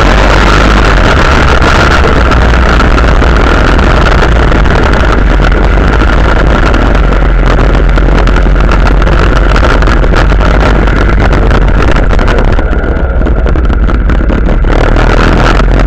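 Quad bike (ATV) engine running steadily at riding speed, with heavy wind rumble on the microphone. It eases slightly for a couple of seconds near the end.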